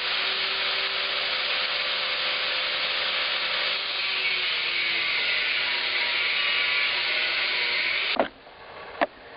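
Drill Master cut-off grinder with an abrasive wheel cutting through a shelving-unit leg: a steady, loud grinding hiss with a faint whine, which stops suddenly about eight seconds in. A couple of sharp clicks follow.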